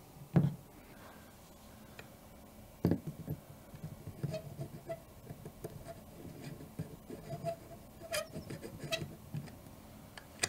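Small handling sounds from a Minolta AL-F rangefinder camera: the camera body bumps on a wooden table a couple of times, then a two-pronged tool clicks and scrapes in the slots of its metal screw-in battery cover as the cover is worked loose, with a few sharper clicks about eight seconds in.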